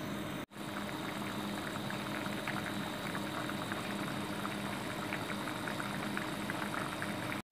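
Rice boiling vigorously in its spiced water in an open pan: a steady bubbling with many small pops, the stage before the water is absorbed and the pot is covered to steam. The sound cuts out briefly about half a second in.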